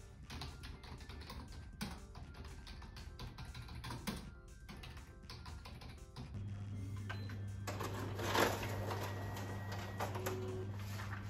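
Rapid clicking of typing on a computer keyboard. About six seconds in, an office multifunction copier starts running with a steady low hum and a wash of machine noise.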